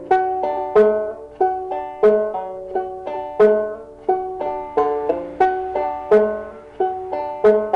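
Five-string banjo in open D tuning played slowly in two-finger style: a steady run of plucked melody notes, about three a second, each ringing and decaying. The fifth-string drone sounds the third of the chord (F sharp) rather than the root.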